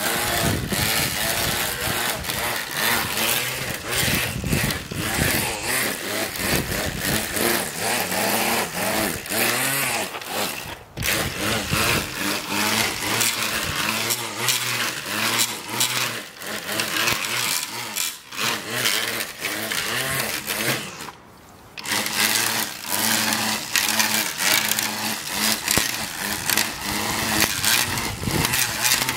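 Cordless string trimmer running and cutting grass, its motor letting off briefly about a third of the way in and for about a second about two-thirds of the way in.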